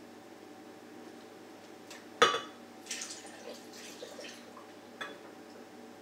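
Whole milk being poured into a blender jar over ice and mango, with a sharp clink against the jar about two seconds in.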